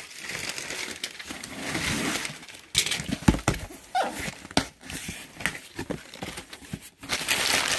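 A box cutter slitting the tape on a cardboard box, with scraping and clicks as the cardboard flaps are pulled open, then packing paper rustling near the end.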